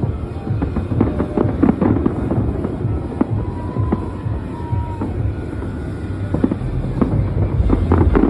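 Aerial fireworks bursting overhead: an irregular run of sharp bangs and crackles over a continuous low rumble. Music plays underneath, and two brief high tones sound near the middle.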